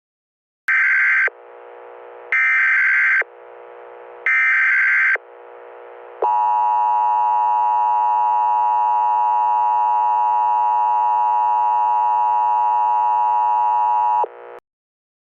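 Emergency Alert System tones: three short data bursts of the digital SAME header, about a second apart, then the steady two-tone EAS attention signal for about eight seconds, which cuts off abruptly.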